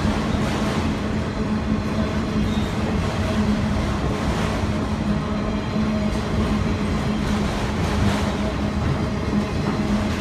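Train rolling past in a steady loud rumble, with a constant low drone under it and a few faint wheel clicks.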